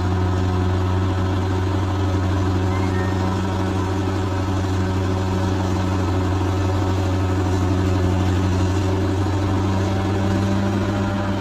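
Large bulldozer's diesel engine running steadily at an even speed, a deep, constant drone with no changes in pitch.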